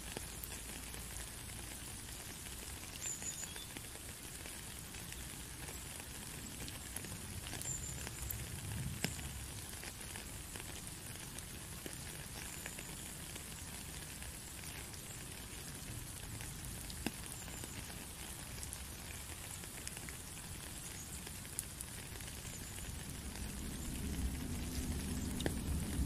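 Steady rain falling on a puddle and wet stone path: an even hiss with scattered single drops pattering. A low rumble swells near the end.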